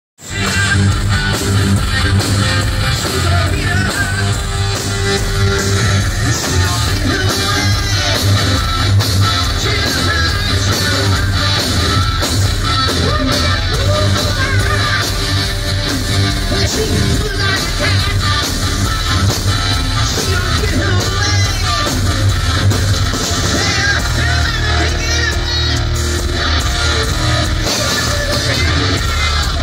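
Live rock band playing loud, with electric guitars and drums, heard from within the audience of a concert hall.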